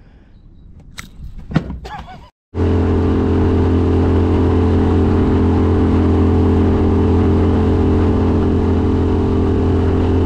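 A few faint handling clicks, then, after a cut, a boat's outboard motor running loud and steady at cruising speed, with a constant low hum and the rush of wind and water.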